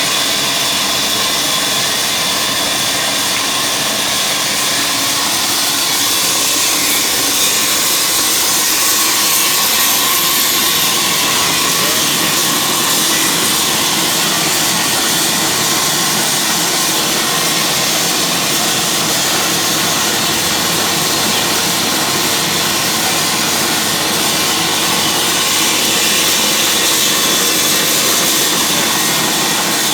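Engine-driven wood-cutting machine running steadily: a loud, even, hissing machine noise with a faint high whine throughout.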